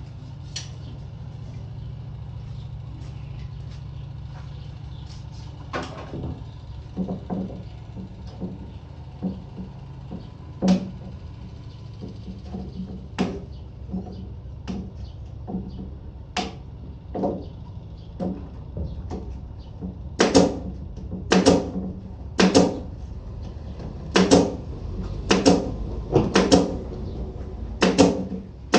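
Hammer blows on wood: sparse knocks at first, then a steady run of hard strikes about once a second in the last third, over a low steady hum near the start.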